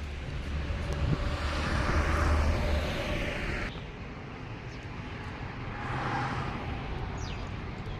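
Outdoor vehicle noise: a low rumble with two swells, like vehicles passing, about two and six seconds in, and an abrupt cut a little past halfway.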